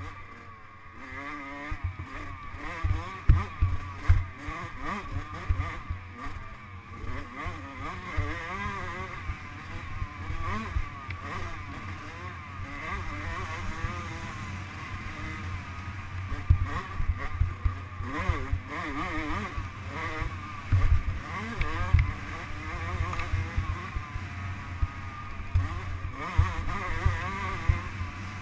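Dirt bike engine heard from an onboard camera at racing speed, its pitch rising and falling as the throttle is worked over rough desert ground. Frequent low thumps run under the engine throughout.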